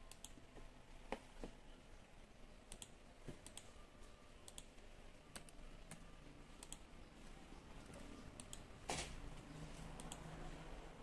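Faint, scattered light clicks, many in quick pairs, with a brief louder rustle about nine seconds in.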